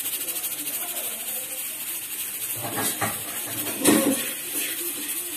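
Lentil fritters (bhalle) deep-frying in hot oil in a kadhai, with a steady sizzle. A perforated skimmer knocks against the pan once, about four seconds in, as it stirs them.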